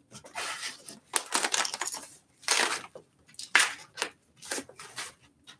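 Protective foam and plastic packing wrap being pulled off an e-bike, rustling and crinkling in irregular bursts.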